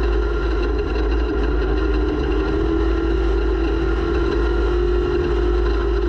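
Off-road race vehicle's engine running hard at a nearly steady pitch, heard through an onboard camera, with heavy wind rumble on the microphone.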